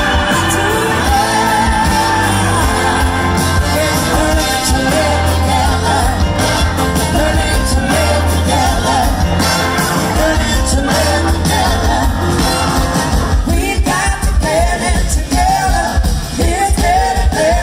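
Live rock band playing with electric guitars, bass and drums, and a woman singing lead over it, heard from within the audience.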